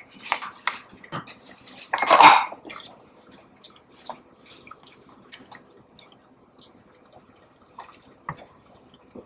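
Wooden spoon scraping banana sauce from a plastic measuring cup into a stainless steel pot of tomato sauce, then stirring it: light knocks and scrapes of spoon against cup and pot, the loudest clatter about two seconds in, then fainter scattered ticks.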